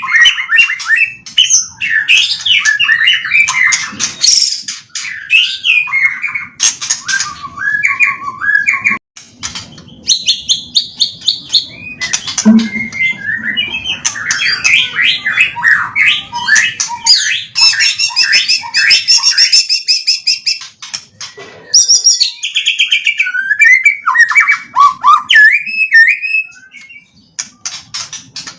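White-rumped shama (murai batu) singing a loud, fast, ever-changing song of warbles, trills, rapid clicks and whistles, strung together with imitated calls of other birds: its 'isian', the borrowed song content a keeper trains in.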